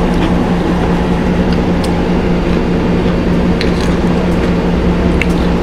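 A steady low hum throughout, with a few faint crackles and squishes as fingers tear apart a piece of spicy fried chicken with a thick, crunchy breading.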